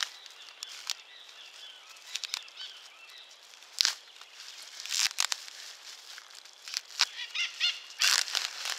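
Plastic bag wrapping being torn and crinkled by hand, in irregular short bursts of rustling and ripping.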